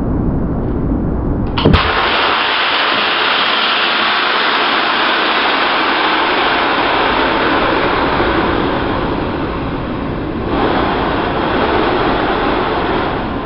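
A sharp click as the solenoid valve of a homemade CO2-powered tool fires, then a long steady hiss of compressed CO2 gas rushing out through its needle, easing slightly near the end. A low muffled rumble comes before the click.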